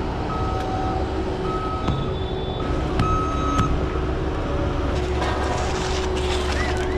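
Construction vehicle's reversing alarm beeping over a running engine, the beeps stopping about halfway through. A couple of sharp clicks come a few seconds in.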